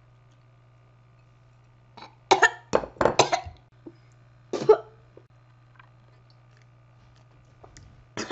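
A boy coughing and gagging in a cluster of short, loud bursts about two seconds in, then once more a couple of seconds later, reacting to a bite of cold pepperoni with mustard; he says he almost threw up.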